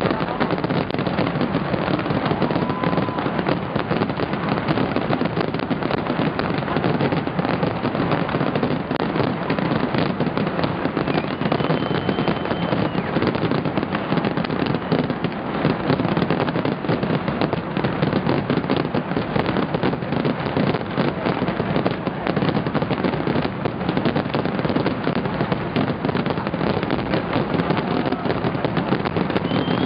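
Professional fireworks display: a dense, unbroken barrage of bangs and crackling, with an occasional brief whistle.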